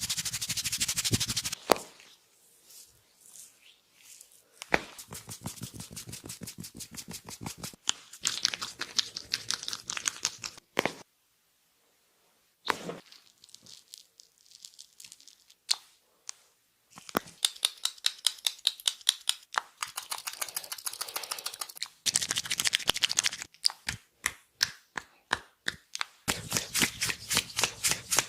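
Hands slapping and tapping in a percussive head massage: quick runs of sharp claps with short pauses between them, and a brief silence near the middle.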